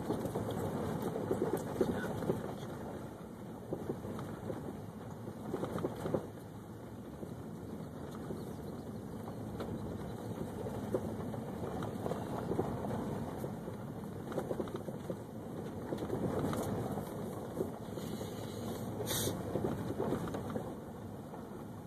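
Car driving slowly on a gravel road, heard from inside the cabin: steady tyre and road noise with a fine crackle of gravel under the tyres.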